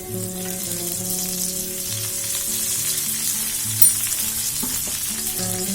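Garlic and curry leaves frying in hot oil in a pan: a steady sizzle with dense crackling, and one sharp pop about four seconds in.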